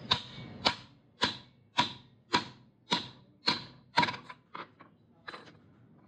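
Sharp metallic knocks, about two a second, as a steel tube is driven down over a Hero Glamour Fi crankshaft to press a ball bearing onto its journal. The strikes grow lighter and more spaced out after about four seconds as the bearing seats.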